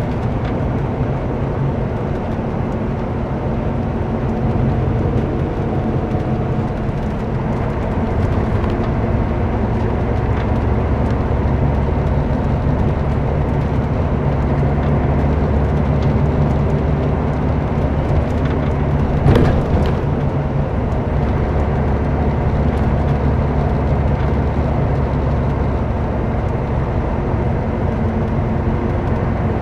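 Cabin sound of a Scania K124 coach under way: the rear-mounted six-cylinder diesel drones steadily under road and tyre noise. A single brief knock comes about two-thirds of the way through.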